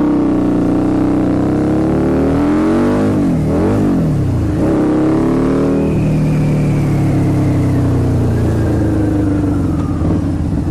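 Harley-Davidson V-Rod V-twin running through unbaffled TAB Performance slip-on mufflers, revved up and down a few times a few seconds in, then settling back to a steady idle. The owner smells it over-fuelling and reckons it will need a tuner.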